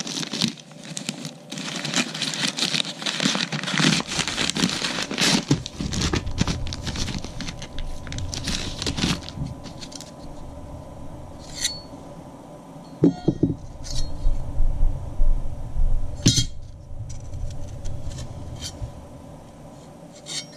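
A plastic parts bag being torn open and crinkled by hand for about nine seconds. Then come scattered clicks and knocks as thin metal headlight brackets are handled.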